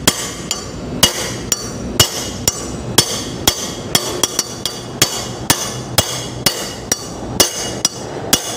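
Hammer striking a forklift's caster wheel leg assembly to knock it apart for a bearing replacement: steady blows about twice a second, each with a sharp metallic ring, with a few lighter taps in between.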